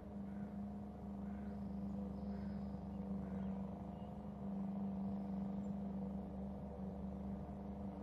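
A steady low hum, with faint short bird chirps every second or so.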